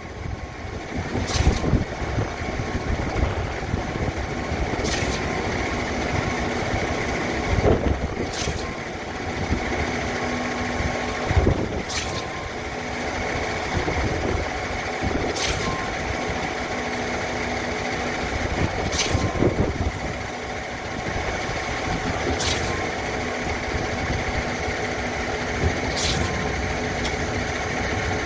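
DY 57-metre truck-mounted concrete boom pump running on a pour: a steady diesel engine and hydraulic hum, with a short clunk and hiss about every three and a half seconds as the pumping cylinders change stroke.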